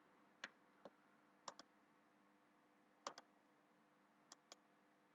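Computer mouse clicking, about eight short clicks spread out, several in quick pairs like double-clicks, over a faint steady hum.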